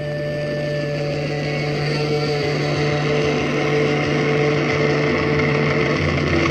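KLH 403A indoor/outdoor loudspeakers playing back a steady droning passage, with a low hum and a few held tones, slowly getting louder.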